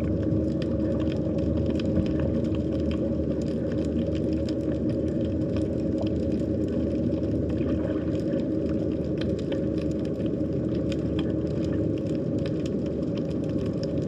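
Underwater sea ambience: a steady low rumble with a constant hum running through it, and scattered faint clicks and crackles above.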